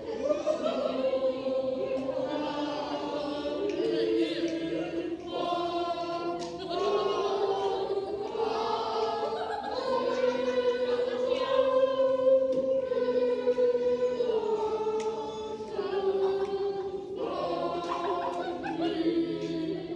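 A youth choir singing long held chords, shifting to new notes every few seconds, with short breaks between phrases.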